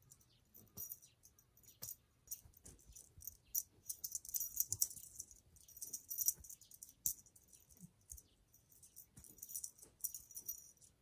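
Small metal jingling and rattling in irregular bursts, with light clicks, as a cat bats at a fluffy rainbow teaser wand and jerks its collar tag.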